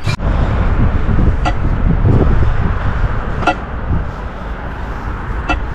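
Street traffic rumbling steadily, with a few short clicks about every two seconds.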